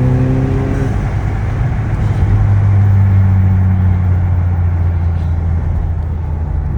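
Audi A5's turbocharged engine pulling while driving: its note climbs slightly, drops about a second in, then settles into a steady low drone.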